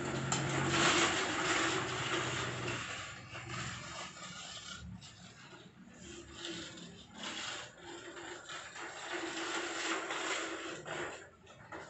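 Child's bicycle with training wheels rolling over gravel and paving, its tyres and small stabiliser wheels crunching and scraping, louder in the first few seconds.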